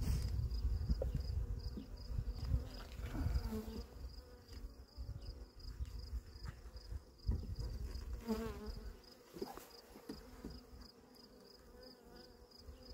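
Honeybees buzzing around an opened hive, with a bee flying close past the microphone a couple of times, over low rumbling handling noise. A high, evenly pulsing chirr runs steadily behind it.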